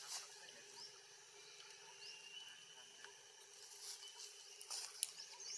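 Faint outdoor ambience: a quiet background with a few faint high chirps and soft ticks, and one sharp click about five seconds in.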